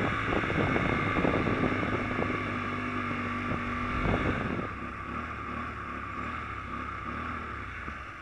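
Small 125cc motorcycle engine running, steady for about four seconds, then dropping off in level as it eases off.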